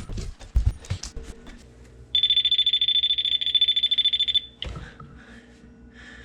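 Non-contact voltage tester giving a high-pitched, rapidly pulsing beep for about two seconds, starting about two seconds in: it is detecting voltage on the dishwasher's supply wire, still live although the breaker labelled dishwasher is off. A few clicks come just before it.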